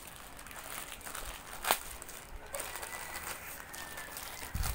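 Plastic courier mailer bag crinkling as it is handled and pulled open, with one sharp crack about a second and a half in and a dull thud near the end.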